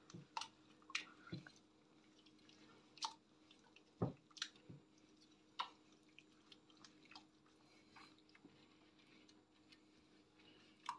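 Faint, irregular wet squelches and clicks of a gloved hand mixing chicken pieces through a thick yogurt-and-cream marinade.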